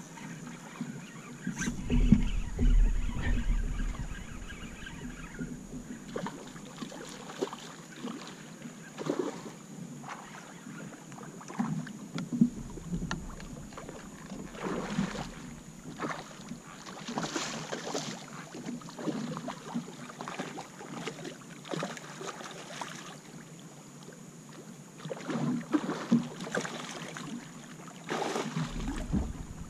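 Scattered knocks and taps on a Hobie kayak's plastic hull and fishing gear as an angler fights a redfish on rod and reel, with louder low bumps about two seconds in, around twelve seconds, and again near the end.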